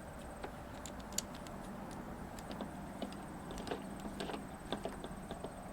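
Small scattered clicks and light rattles of pressure washer hose fittings being handled and screwed together by hand with a coupler.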